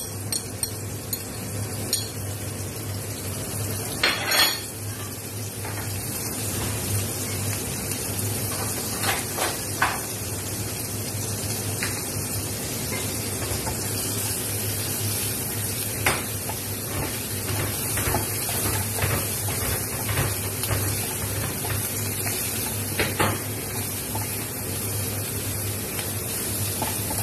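Minced garlic and ginger sizzling in melted butter in a nonstick frying pan, with a steady hiss, while a wooden spatula stirs, scrapes and knocks against the pan. There is a louder clatter about four seconds in, and scattered clicks after it.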